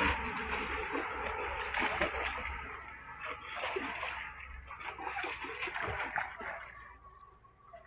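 Irregular splashing and sloshing of water at a woven bamboo fish trap set in a flowing drain outlet, as hands work at the trap in the water. The splashing thins out and quietens near the end.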